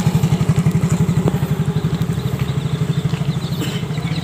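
A small engine idling, a loud, steady, rapid chugging of about ten beats a second.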